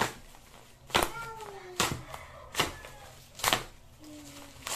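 Bubble wrap and packing tape being worked loose from a parcel by hand: five sharp crackles, a little under a second apart. A faint falling call sounds in the background after the second crackle.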